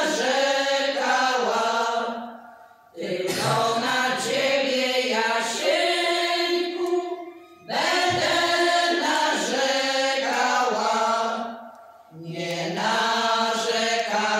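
Women's folk choir singing a traditional Polish folk song unaccompanied, in long phrases of four to five seconds with short breath breaks between them.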